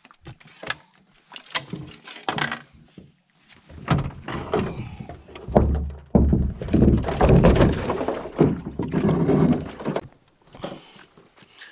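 Handling noise of gear and a camera being moved about: scattered clicks and knocks, then a louder stretch of rustling, bumps and thuds through the middle seconds that dies down near the end.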